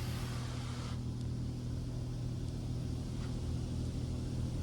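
PDQ Laserwash M5 touchless car wash spraying hot wax, heard from inside the car: a steady low hum under a spray hiss that eases off about a second in.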